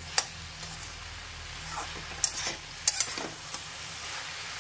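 Metal spatula stirring water spinach and potatoes in a metal kadai: several sharp scrapes and clinks against the pan over a soft steady sizzle.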